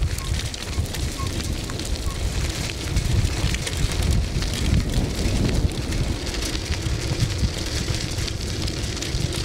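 Wind rumbling on the microphone over a steady crackling crunch of tyres rolling on a loose gravel road base.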